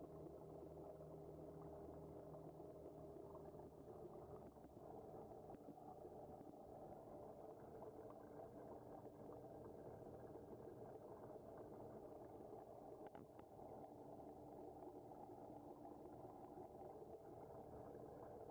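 Faint steady hum and bubbling of reef-tank circulation pumps and moving water.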